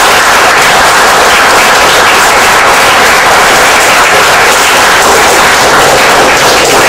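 Audience applauding: loud, steady clapping from a hall full of people.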